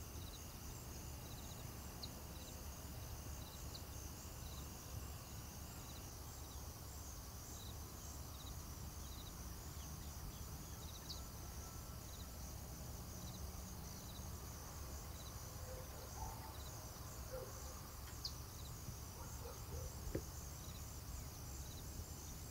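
Faint evening countryside ambience: a steady high insect chorus with short chirps repeating every second or two, and a few soft bird calls near the end.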